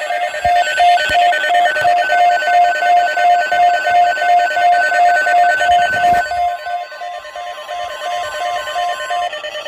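Weather alert radio alarm beeping, a rapid pulsed electronic tone about three beats a second with steadier alert tones beneath it, sounding for a severe weather alert; the beeping stops shortly before the end. A sharp knock about six seconds in.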